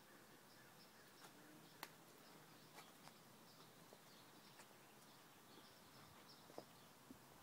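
Near silence: faint outdoor background with soft, high chirps repeating throughout and a few light clicks.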